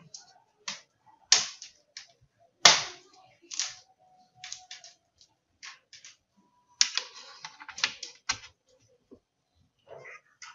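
Irregular sharp clicks and taps from hands handling the opened laptop and its charger plug. The loudest click is about two and a half seconds in, with a tight cluster of clicks near the end.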